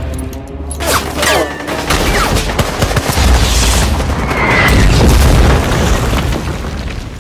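Film battle sound effects: heavy explosions and bursts of gunfire, loudest from about three to five and a half seconds in.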